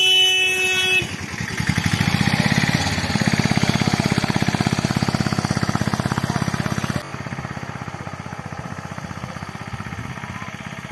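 A vehicle horn sounds for about a second, then an Atul auto-rickshaw's engine runs close by with a fast, even chugging pulse. About seven seconds in the engine drops suddenly and goes on more quietly.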